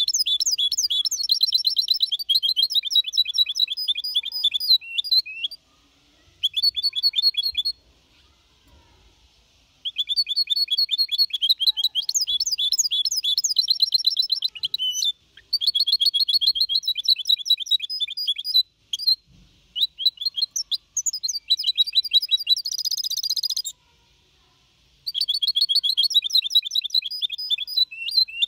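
Young goldfinch × canary hybrid (mixto), four and a half months old, singing a clean song in the Málaga style: phrases of rapid, high trilled notes a few seconds long, broken by short pauses, with a harsher buzzy stretch near the end.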